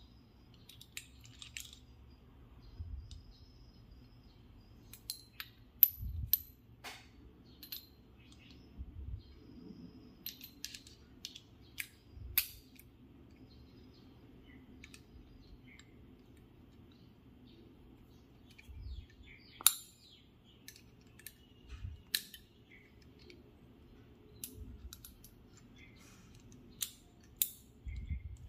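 Scattered sharp clicks and light knocks at irregular intervals, a few soft low thumps among them, over a faint steady hum.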